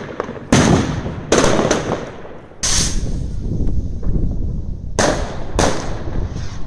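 Fireworks going off: five sharp bangs of bursting shells and firecrackers, with continuous crackling and a low rumble of further fireworks between them.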